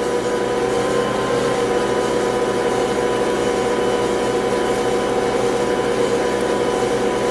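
Ankarsrum Assistent stand mixer running steadily at low speed, its motor humming as the stainless bowl turns and churns bread dough.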